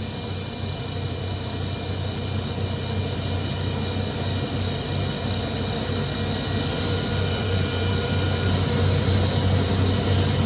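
Kaeser SM11 7.5 kW rotary screw air compressor running on load, a steady low hum with a high whine, as it builds pressure toward about 8 bar. It grows slightly louder over the few seconds.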